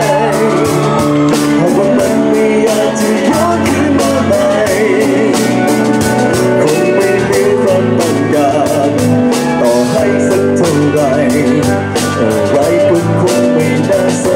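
Live rock band playing: drums keeping a steady beat, electric guitar and bass, with singing over the top.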